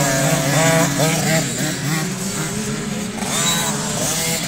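Motocross dirt bike engines running hard over a steady lower engine drone, with the revs sweeping up and down quickly about a second in and again later on.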